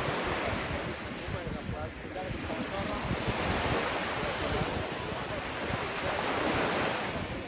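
Ocean surf breaking and washing up a beach, with another wave rushing in about three seconds in, and wind buffeting the microphone.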